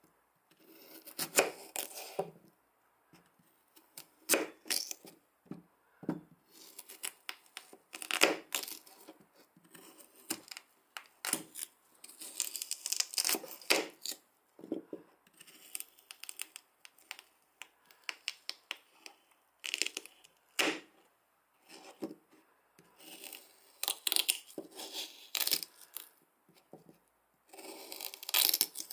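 A small knife cutting a peeled raw potato on a plastic cutting board: cuts through the potato and taps on the board come in short irregular bursts, with pauses between them.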